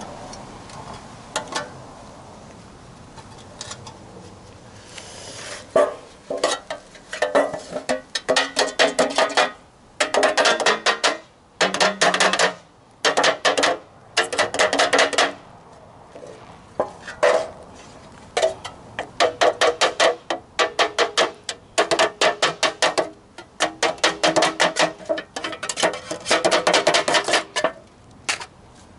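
Metal scraping and clicking on a thin steel fuel can as the burrs around its drilled holes are removed by hand. It comes in quick bursts of rapid strokes, each a second or two long, starting about six seconds in.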